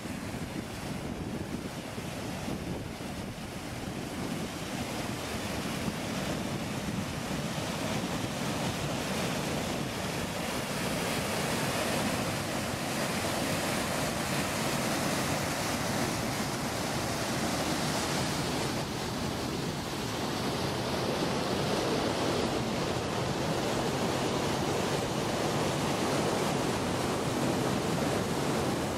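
Steady rushing of a rocky mountain stream pouring over a small waterfall, mixed with wind noise on the microphone.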